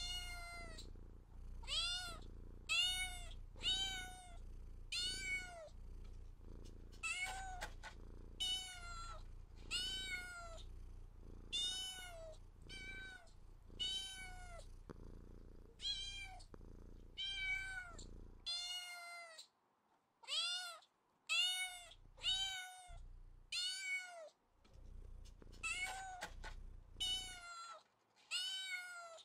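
A domestic cat meowing over and over in short meows, about one a second, each rising and then falling in pitch. A faint low hum lies under the meows and stops about two-thirds of the way through.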